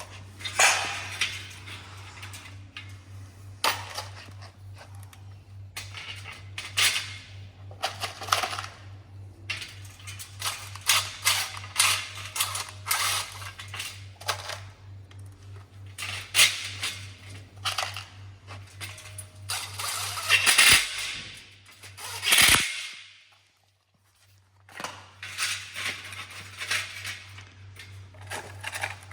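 Irregular clicks, clinks and rattles of greenhouse frame parts being handled and fitted together during assembly, over a steady low hum. The sounds drop out briefly about two-thirds of the way through.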